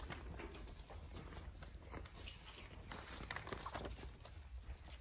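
Faint, irregular footsteps and taps as a person walks on a hard floor, over a low steady hum.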